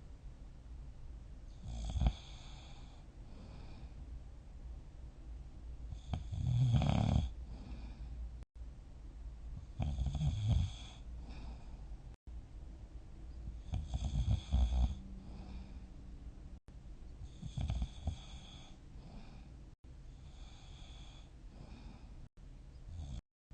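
A sleeping person snoring steadily, about six snores at roughly four-second intervals, each lasting around a second.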